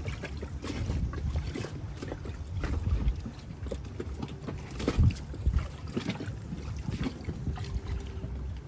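Wind buffeting the microphone in a steady low rumble over choppy water, with irregular small knocks and splashes; one stronger thump about five seconds in.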